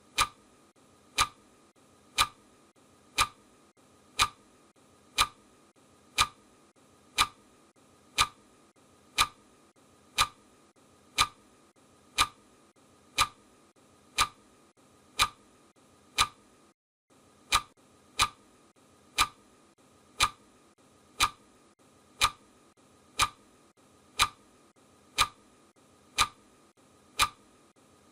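Clock ticking, one sharp tick each second. The sound drops out briefly about seventeen seconds in, skipping a tick, then the ticking resumes.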